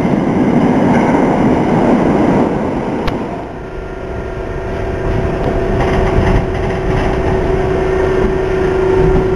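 New York City Number 1 subway train: first the heavy rumble of a train running into an underground station, then, after a sudden click about three seconds in, the running noise heard inside a moving car, with a steady hum.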